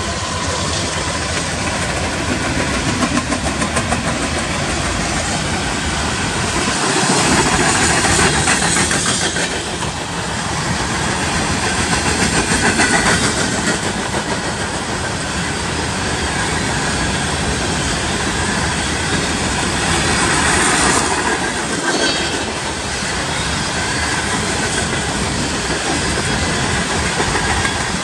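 Empty coal train's steel hopper cars rolling past close by: a continuous rumble of wheels on rail that swells and eases as the cars go by.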